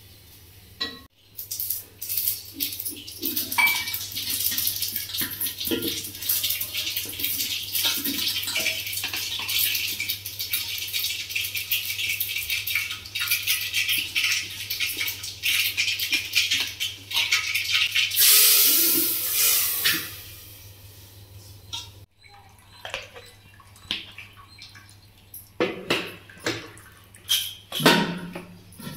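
Water splashing and pouring in aluminium cooking pots, with a louder pour about two-thirds of the way in. Then come a series of separate metal knocks and clinks as the pots are handled.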